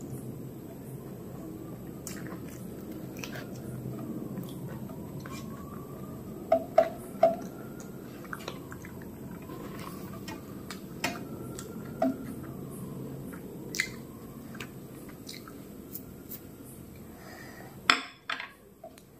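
Close-miked eating sounds: chewing and mouth clicks, with fingers mixing rice on a metal plate. Scattered sharp clicks and taps come through, the loudest in a quick run about six to seven seconds in, and a few more near the end as food is moved from a side dish.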